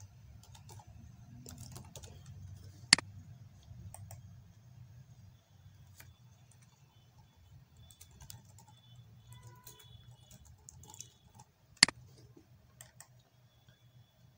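Typing on a computer keyboard: scattered light key clicks with pauses, and two much louder sharp clicks about three seconds in and near the end, over a low steady hum.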